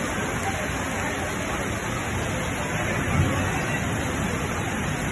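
Steady rushing of floodwater running down a street, with a brief low bump about three seconds in and voices in the background.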